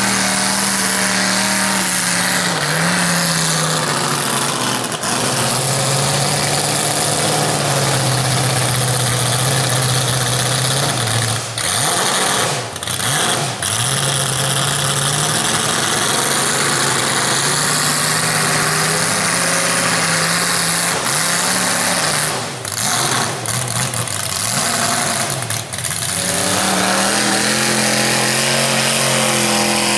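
Mud truck engines revving hard through a mud hole, the pitch rising and falling as the tires spin. The engine note drops away briefly twice, a little before halfway and again past the three-quarter mark.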